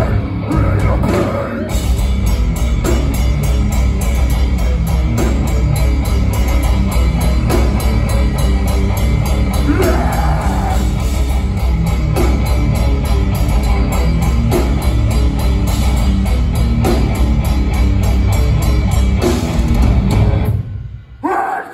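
Live metal band playing: distorted electric guitars over fast drumming, cutting off abruptly near the end.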